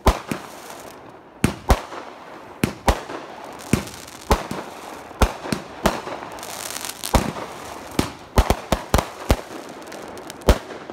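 Consumer aerial fireworks going off in a rapid string: about twenty sharp bangs at uneven intervals, some in quick pairs, with crackling between them.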